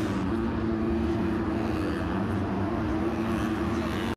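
Steady engine drone holding one pitch, over a background of noise.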